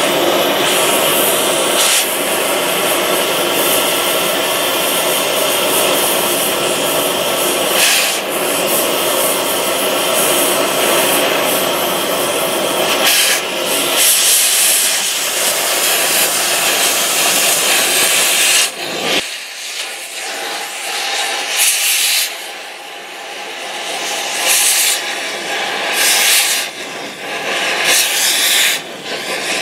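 Oxy-fuel cutting torch cutting through rusted steel channel iron: a loud, steady hiss of flame and cutting oxygen with spatter. About two-thirds of the way through the sound drops, and then the hiss comes in several short bursts.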